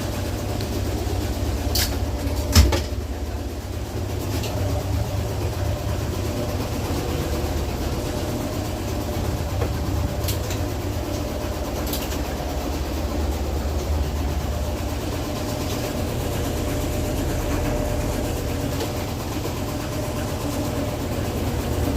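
Maytag MVW6230HW3 top-load washing machine spinning really fast in its spin cycle: a steady low rumble with a hum above it. A single sharp knock comes about two and a half seconds in, with a few fainter clicks later.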